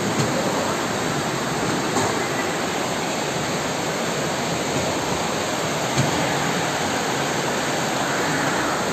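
Floodwater from an overflowing creek rushing down a town street in a flash flood: a loud, steady rush of torrential water.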